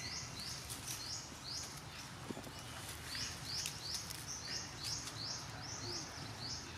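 High, rhythmic chirping from a small calling animal, short calls repeating about three or four times a second, with a pause of about a second midway, over steady outdoor background noise.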